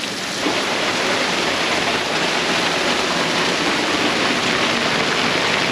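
Heavy squall rain pouring down onto the sea and the boat, a steady dense hiss that swells a little just after the start.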